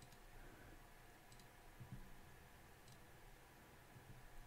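Near silence with a few faint computer mouse clicks, left-clicks placing supports one at a time.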